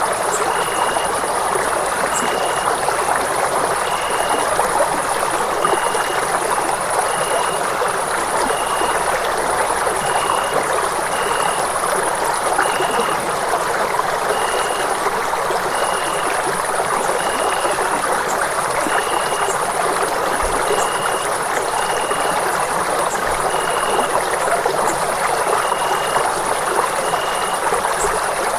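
Running water of a stream, rushing steadily. A short high chirp repeats about once a second above it, with a fainter, very high intermittent buzz.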